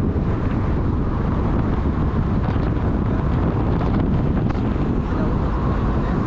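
Steady, heavy wind buffeting the microphone, a dense low rumble with no clear machine tone.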